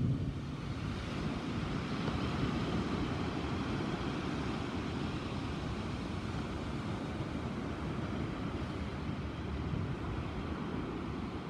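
Thunderstorm noise: a steady rushing sound with a low rumble underneath.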